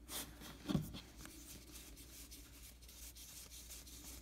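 Cardboard trading cards sliding and rubbing against one another as a stack is thumbed through by hand: a faint, scratchy rustle with small ticks of card edges, and a soft low bump just under a second in.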